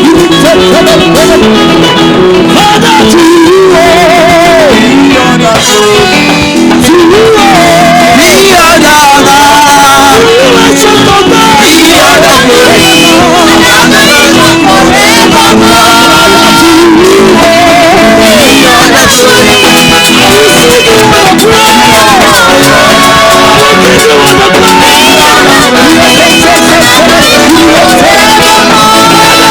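Gospel worship music playing, with singing over a steady instrumental backing.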